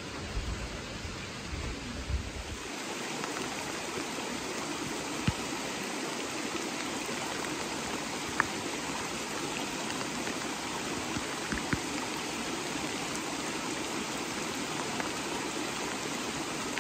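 A creek running high after rain, a steady rush of water, with a few low rumbles in the first couple of seconds.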